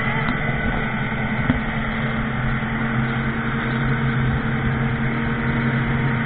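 Outboard motor of a motorboat running steadily at speed under the load of towing a tube, a steady low drone over the rush of wake water and wind.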